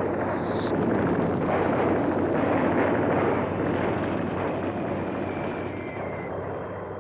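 Artillery fire and shell explosions forming a continuous rumbling din, with no separate blasts standing out. It swells about two to three seconds in, then slowly fades.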